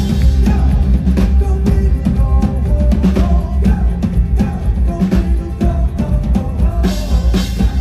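Loud full-band pop-rock music with a drum kit and heavy bass, kicking in abruptly just before and playing on with a steady beat.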